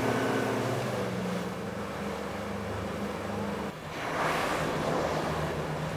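Outboard motor of a small open boat running steadily underway, with water rushing past the hull. About two-thirds through the sound changes abruptly and the rush of water grows louder.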